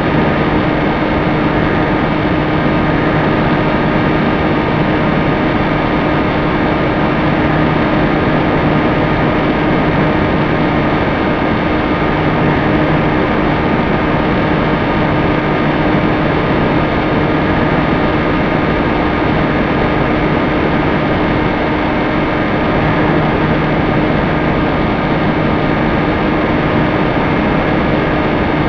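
Electric motor and propeller of an FPV model aircraft, heard through its onboard camera: a steady hum at constant throttle over a loud rush of wind noise.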